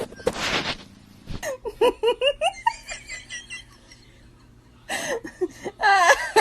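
A person laughing in two runs of short pitched bursts, the second run the loudest, with a short hiss just before the first.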